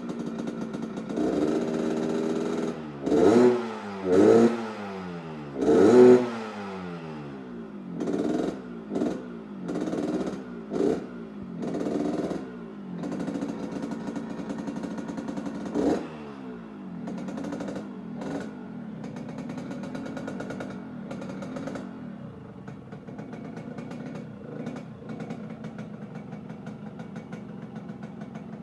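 Yamaha RX King 135cc two-stroke single-cylinder motorcycle engine revved in quick throttle blips: the three loudest come in the first six seconds, then a run of smaller ones until about sixteen seconds in. After that it settles to a steady, rattly idle.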